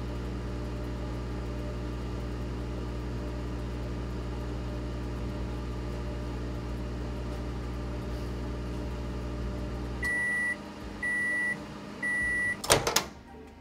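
GE turntable microwave oven running with a steady hum that stops about ten seconds in, followed by three short end-of-cycle beeps. Near the end, a loud clack as the door is opened.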